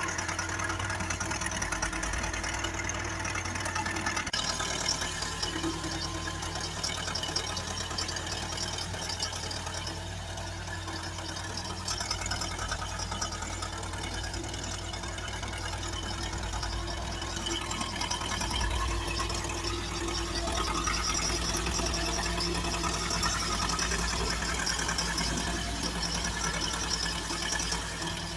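HYMAC 370C backhoe excavator's diesel engine running steadily, with a continuous clatter over a low hum.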